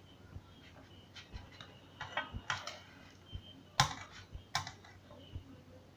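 Spatula clicking and scraping against a non-stick frying pan while working under a pancake to flip it: a few scattered clicks, then two sharper knocks a little past halfway.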